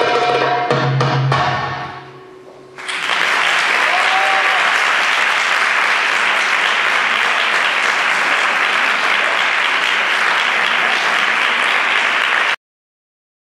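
Belly dance music ends with a few last drum strikes, then after a short pause an audience applauds steadily. The applause cuts off suddenly near the end.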